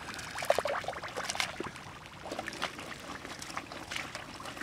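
Hands digging and scooping in wet mud and shallow water: squelching, with irregular small splashes and trickling water.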